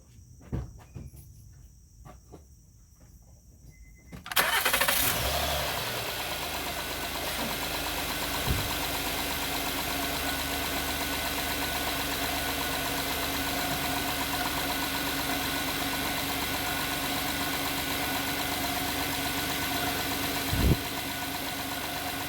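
2011 Honda Pilot's 3.5-litre V6 starting about four seconds in, flaring up briefly and then settling into a steady idle. A short thump near the end.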